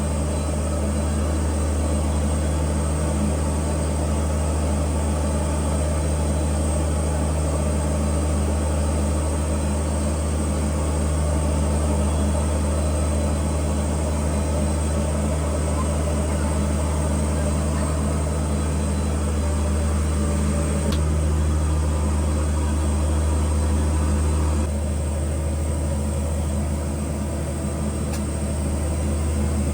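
Fishing boat's engine running steadily under way, a deep, even drone whose tone shifts slightly about 25 seconds in.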